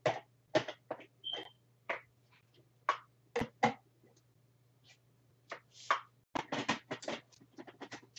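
Hard plastic Ninja blender cups, jars and lids being handled: irregular clicks and knocks as they are set down and fitted onto the motor bases, with a denser run of clattering near the end.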